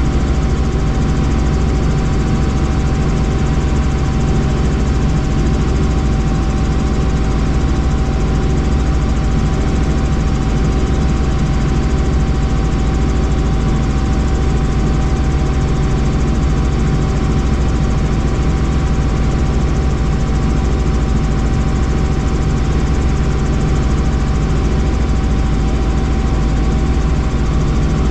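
Helicopter in steady flight: constant engine and rotor noise with a steady high whine over a dense low rumble.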